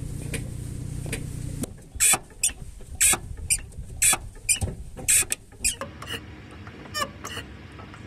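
Engine idling, then from about two seconds in, short high squeaks repeating roughly twice a second from the clutch release mechanism as the clutch pedal is pressed. It is the small noise on pressing the clutch that can mean a damaged clutch slave cylinder.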